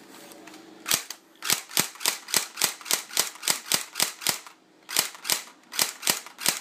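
Battery-operated M4A1 airsoft rifle firing a rapid string of sharp snapping shots, about four a second. The shots pause briefly about four and a half seconds in, then a few more follow.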